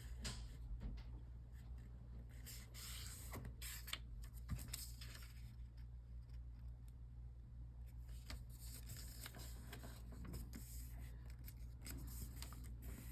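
Origami paper being folded and creased by hand: faint rustling and scraping in short bursts with small clicks, over a low steady hum.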